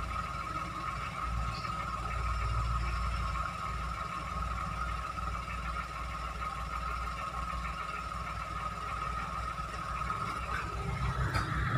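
Toyota Agya small car engine idling steadily: a low rumble with a steady high whine over it.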